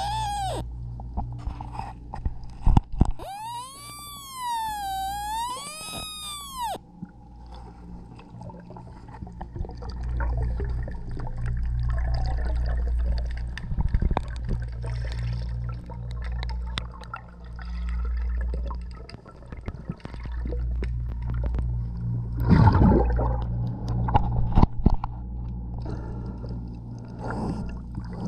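Underwater sound around a diver: a steady low drone that swells and fades every few seconds, a wavering whistle with overtones that dips and rises about three seconds in, and a loud burst of bubbling about twenty-two seconds in.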